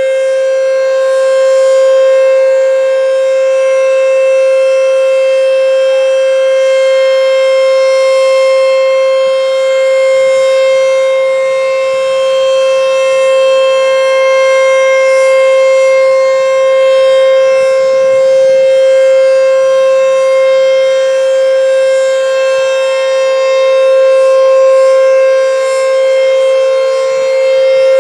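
ACA Screamer S-5 civil defense siren sounding a steady tone, holding one pitch while its loudness swells and fades gently.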